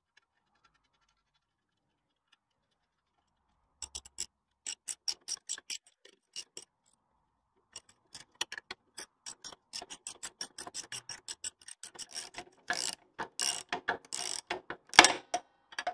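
Ratchet spanner clicking rapidly in short spurts as it runs nuts down onto the rear axle U-bolts at the leaf spring plate. It starts about four seconds in and grows louder and denser near the end.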